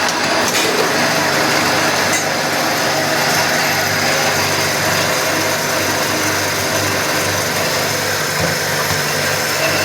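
Automatic drilling and tapping machine running steadily: a constant low motor hum under a broad mechanical whirr.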